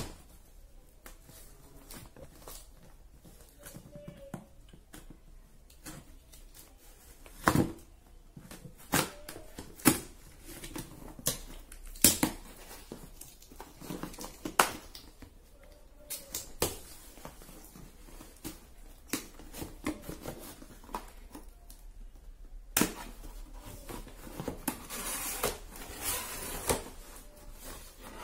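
Packing tape being slit and peeled off a cardboard box, with scattered sharp knocks and scrapes on the cardboard. Near the end there is a longer rustling stretch as the box flaps open and plastic wrapping is handled.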